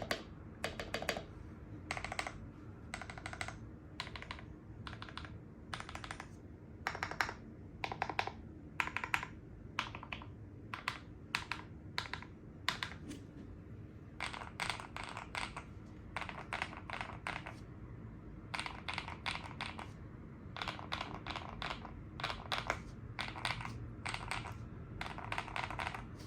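Typing on a KDBfans KDB67 custom mechanical keyboard, the keystrokes clicking in quick runs with short pauses between them. The uploader calls the sound creamy.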